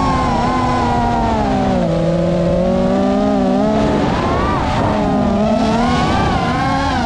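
GEPRC Mark 5 FPV quadcopter's brushless motors and propellers whining loudly, the pitch rising and falling with the throttle. About four seconds in the tones split and waver as the motors run at different speeds while the quad banks and rolls.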